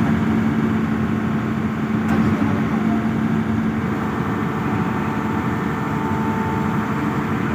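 Hyundai 215 excavator's diesel engine running steadily, a continuous drone with a constant low hum.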